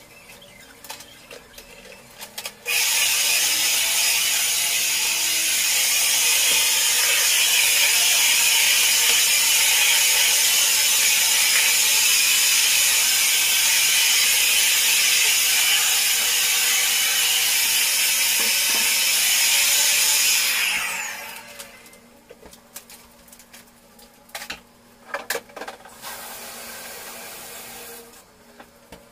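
Vacuum cleaner switched on a few seconds in, running with a loud steady hiss, then switched off, its motor winding down. Scattered clicks and knocks before and after it runs.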